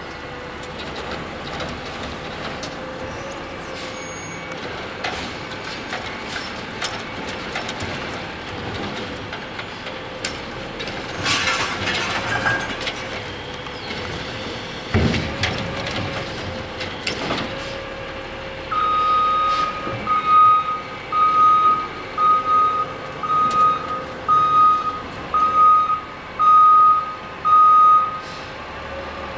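Side-loading garbage truck with its engine running. There is a hiss of air brakes about 11 seconds in and a low thump a few seconds later. Its reversing alarm then beeps about once a second for some nine seconds as the truck backs up.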